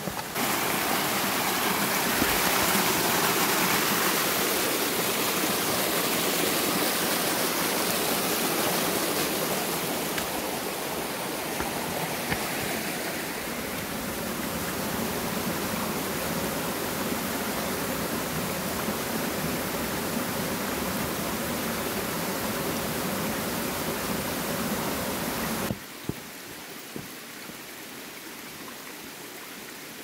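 Mountain stream cascading over rock slabs in a small waterfall: a steady, loud rush of water. About 26 seconds in it cuts to a much quieter stream sound with a few light clicks.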